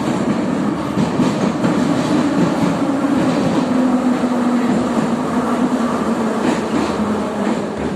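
Type E metro train running through a tunnel, heard from inside the car: a steady roar of wheels on rails with clickety-clack, and a motor hum that slowly falls in pitch through the second half as the train slows for a station.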